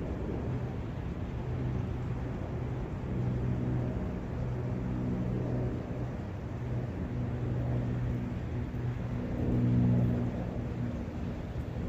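Forest ambience near a brook: a steady low rumble of wind with a faint hum underneath, swelling slightly about ten seconds in.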